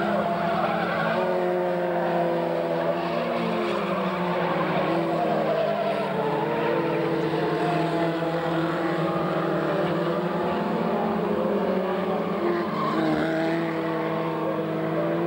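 Several race car engines running at once on the track, their overlapping notes rising and falling as the cars lap.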